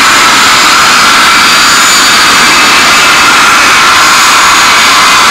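Four Pratt & Whitney JT3D turbofan engines of a Boeing 707-320C running at taxi power as the airliner moves and turns on the ground: loud, steady jet noise with a high whine.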